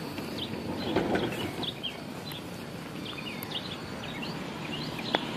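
Birds chirping, many short quick calls, over a steady outdoor background hum; a single sharp click just before the end.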